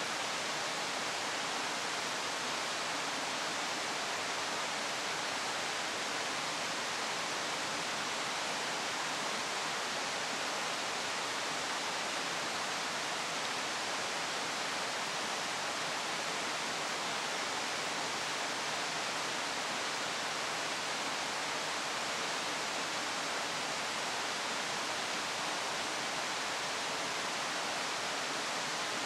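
Steady, even rushing hiss with no pauses or separate sounds, of the kind made by running water or rain.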